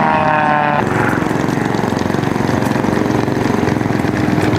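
A propeller aircraft engine running for the first moment, then cut to the small engine of a four-wheeler ATV running at low speed with a rapid, even pulse as it tows a light biplane.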